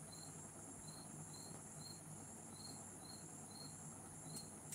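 Faint insect chirping: a short, high chirp repeating about twice a second over a steady high-pitched hum.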